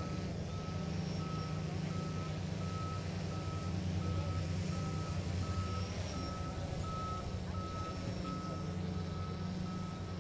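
Low steady diesel hum of a large fishing vessel's engines as it comes alongside a quay, with an electronic backup-alarm tone beeping evenly about one and a half times a second over it.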